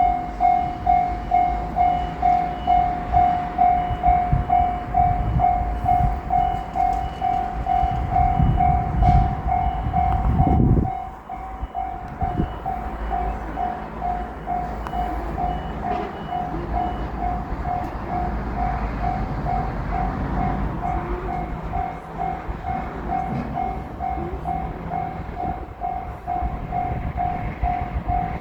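Japanese railroad crossing bell ringing its repeated electronic "kan-kan" about twice a second throughout, while a JR Shikoku 8000 series electric limited express passes. The train's low rumble grows louder, drops sharply about eleven seconds in, and then carries on more quietly.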